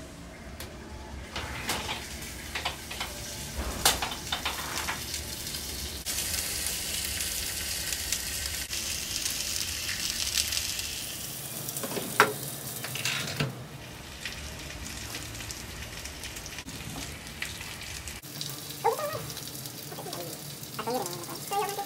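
Whole pompano sizzling on a grill pan in a hot oven, a steady hiss, with a few sharp metallic clicks and knocks of the oven rack, the loudest about halfway through.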